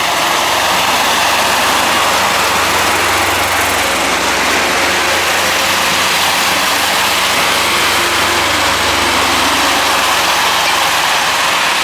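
Heavy vehicle engine running steadily with a low, even drone under a constant hiss.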